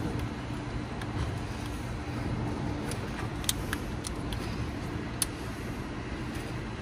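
Steady low background hum, like distant traffic, with a few faint light clicks of the old ignition coil pack and its fittings being handled as it is worked out of the engine.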